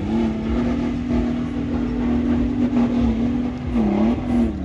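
Off-road 4x4's engine revving hard under load. Its pitch climbs at the start, holds steady and high, then dips and recovers briefly near the end.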